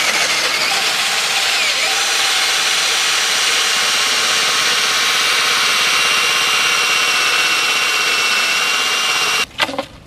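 Battery-powered cordless drill running at full speed with a hole saw, cutting through a clamped plywood sandwich into an aluminium sheet. The cutting runs steadily for about nine and a half seconds, then stops suddenly.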